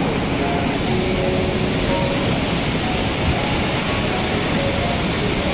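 Floodwater of the swollen Tuaran River rushing across and around a road bridge in a steady, unbroken torrent.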